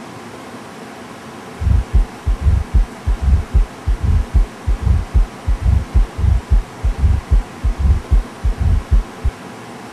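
A fast, uneven run of dull low thumps, about three or four a second, starting a couple of seconds in and stopping shortly before the end, over a steady hiss.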